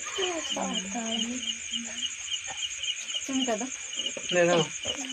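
Crickets chirping steadily in rapid, evenly spaced high pulses, with louder calls rising and falling over them, the strongest about four and a half seconds in.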